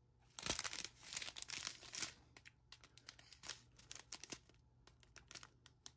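Small plastic bags of diamond-painting drills crinkling and rustling as they are handled, with many light clicks. The rustling is busiest in the first two seconds and sparser after.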